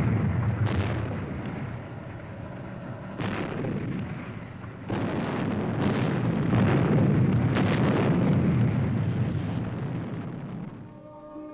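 A building blowing up in a run of explosions: a continuous deep rumble broken by several sharper blasts, dying away near the end.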